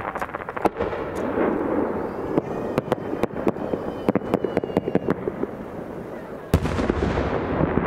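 Aerial firework shells bursting: a quick run of sharp cracks and pops through the first five seconds, then one deep boom about six and a half seconds in that rumbles on.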